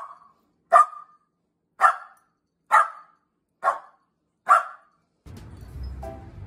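Shetland Sheepdog barking: a run of short, sharp barks about one a second, then stopping. Music starts near the end.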